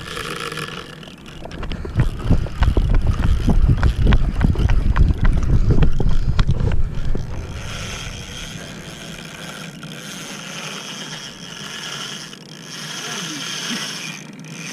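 Spinning reel being cranked during a fight with a fish, its gears and drag giving a mechanical clicking and ratcheting. For the first several seconds there is heavy low rumble and knocking from handling, which then gives way to a steadier hiss.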